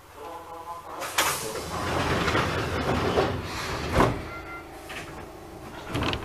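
Sliding doors of an Enshu Railway 1000-series electric train closing: a click, a hiss of air for about three seconds, then a sharp thump as the doors shut.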